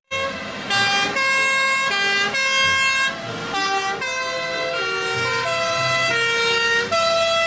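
Two-tone sirens of a convoy of German-style Feuerwehr fire engines on an emergency run. Several horns sound at once, each switching back and forth between two pitches, out of step with one another.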